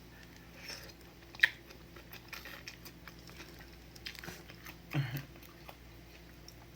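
Close-up mouth sounds of someone eating udon noodles in broth: soft chewing and wet lip smacks, with a sharp click about a second and a half in and a short low sound near the end.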